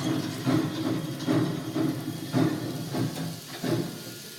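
Played-back Polar Express steam locomotive sound: rhythmic chuffs with hiss, about two a second, thinning out near the end.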